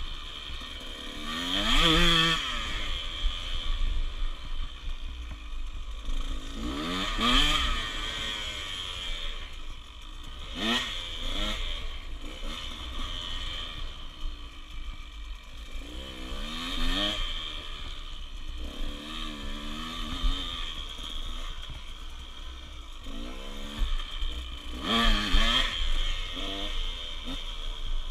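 Small dirt bike engine running and revving up repeatedly as it is ridden, about five rises in pitch, with a steady low rumble of wind on the microphone.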